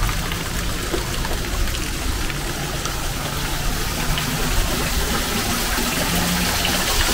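Steady rush of water from a cave stream and waterfall, falling and running over rock.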